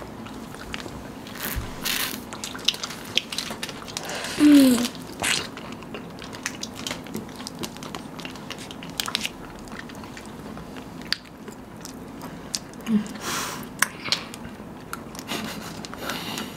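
Close-up eating sounds from several people biting into and chewing chocolate-coated ice cream bars: scattered crunches of the chocolate shell, wet smacks and lip sounds. A brief hummed voice sound comes about four and a half seconds in, the loudest moment, and another short one around thirteen seconds.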